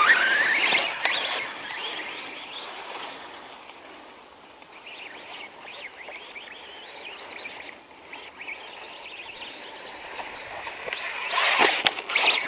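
The electric motor of a SKYRC SR5 quarter-scale RC motorcycle whining, rising in pitch over the first second as it speeds up. It then fades to a fainter, wavering whine over a hiss, and there is a louder burst of noise near the end.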